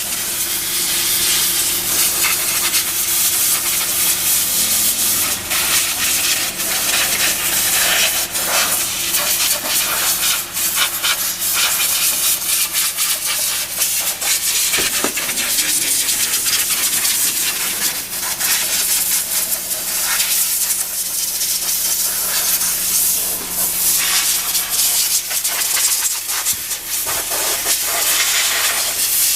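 A steady loud hiss, like rushing air, with many small clicks and rubs over a faint low hum.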